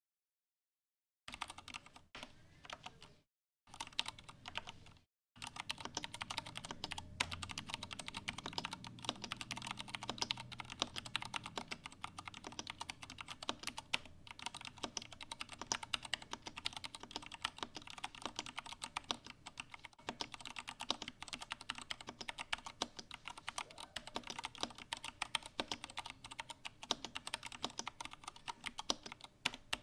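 IQUNIX A80 Explorer mechanical keyboard with Cherry MX Brown switches being typed on: a fast, continuous run of keystroke clicks. It starts about a second in and breaks off twice briefly in the first few seconds before running on steadily.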